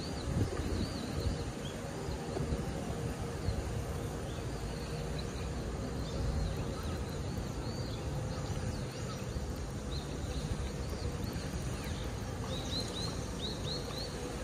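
A bird calling in series of short, quick, arched chirps, a cluster near the start and another near the end, over a steady low rumble.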